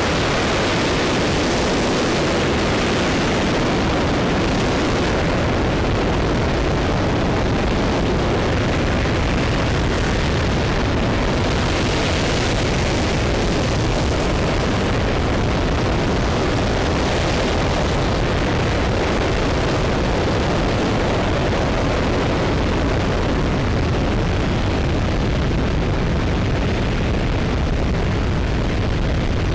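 RS-25 liquid-hydrogen/liquid-oxygen rocket engine firing on a test stand during a hot-fire test: a steady, unbroken wall of noise at an even level, with the hiss in the upper range swelling and fading now and then.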